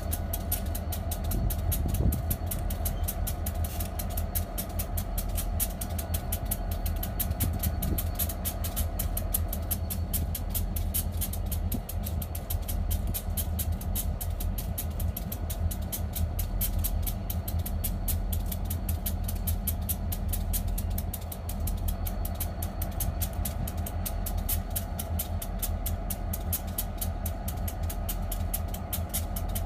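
Housatonic Railroad diesel locomotive running steadily at low power, a continuous deep engine rumble with a steady drone above it.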